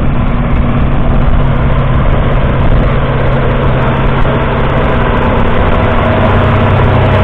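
Kubota M7172's 6.1-litre four-cylinder turbo diesel tractor engine running steadily.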